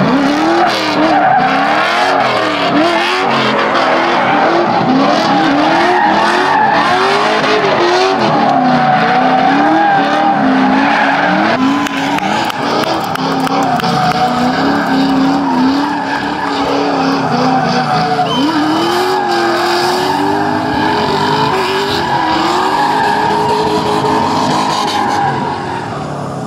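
LS1 V8-swapped Nissan 240SX drifting: the engine revs rise and fall over and over as the driver works the throttle, over tyres screeching and skidding.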